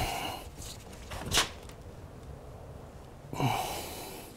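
Hand-work noises from freeing coolant hoses on a motorcycle engine: one sharp click about a second and a half in, then a short scraping rustle near the end as slip-joint pliers are set on a hose clamp.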